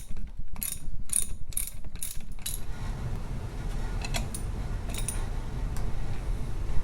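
Ratchet wrench clicking as it works the 1/4 inch Whitworth nuts off a Norton Atlas's conrod bolts, about three or four clicks a second. After about two and a half seconds the clicks give way to a steadier low rumble with only the odd click.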